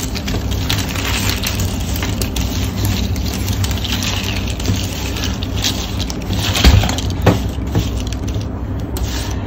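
Cardboard jigsaw puzzle pieces being broken apart and shuffled by hand on a wooden tabletop: a scattered clatter and rustle, with two sharper knocks about two-thirds of the way in. Under it runs a steady low hum.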